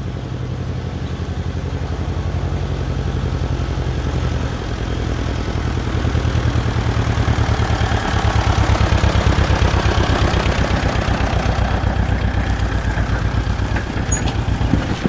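Engine running steadily with an even, rapid chug, growing louder about six seconds in.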